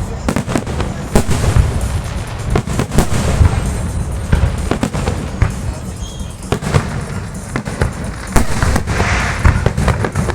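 Fireworks display: a dense, irregular string of bangs and pops from aerial shells over a low rumble, with a few sharper loud bangs about a second in and near the eight-second mark.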